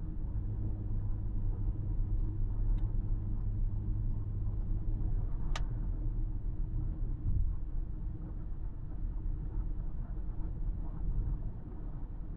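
Car driving at highway speed: a steady low rumble of engine and tyre noise as heard inside the cabin. A single sharp click sounds about halfway through.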